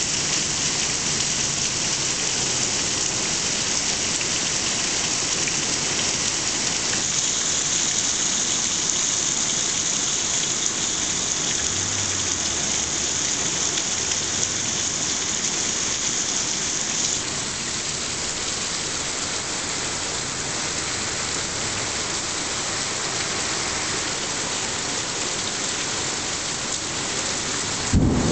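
Torrential rain pouring down steadily in a dense hiss, at about 150 mm an hour. Just before the end a clap of thunder breaks in with a sudden low rumble.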